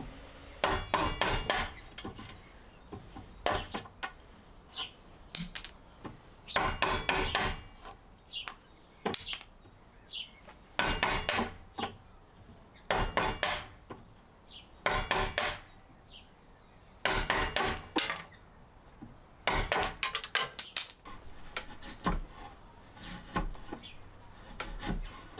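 Steel wood chisel shaving a softwood beam to cut a tenon, in about a dozen short scraping strokes roughly every two seconds.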